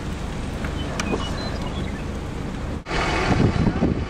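Steady low noise of wind and rain on a vehicle, with a few sharp ticks. A cut a little under three seconds in brings louder, gusting wind on the microphone.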